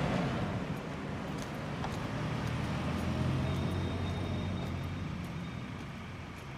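Street traffic: a car passes close by at the start, then another engine swells and fades away over the following seconds.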